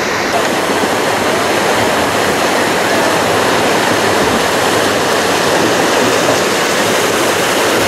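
River rapids: whitewater rushing steadily over rocks, loud and unbroken.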